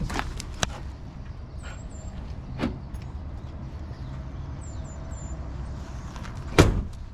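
A low steady rumble with a few knocks and one loud thump about six and a half seconds in. Faint short, high bird chirps sound twice in the background.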